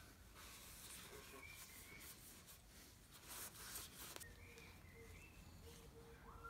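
Faint rubbing of a cloth working leather grease into a leather-wrapped wooden handle, a soft scratchy hiss that is strongest about halfway through. A few faint distant bird chirps come in the background.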